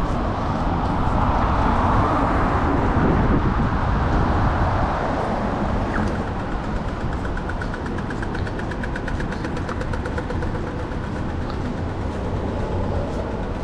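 City street traffic: a vehicle passes, loudest in the first few seconds, then steady traffic noise. From about six seconds in a fast, regular ticking runs alongside.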